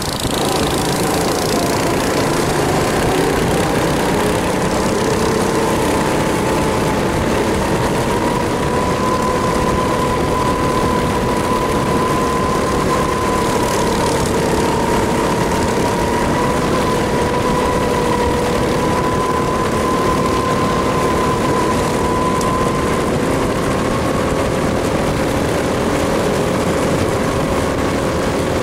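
A 270 cc four-stroke kart engine running at speed under way, its note held fairly steady and wavering only slightly up and down over a rush of air noise.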